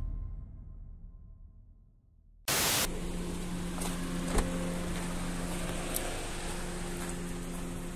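Music fading out to near silence, then a sudden cut to outdoor ambience about two and a half seconds in: a brief loud rush of noise, then steady hiss with a low steady hum and a few faint ticks.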